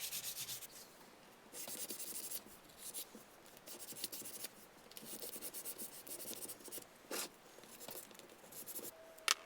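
Rubbing and scratching strokes on the carved wooden board, coming in short irregular bursts with brief pauses between them, as it is finished by hand.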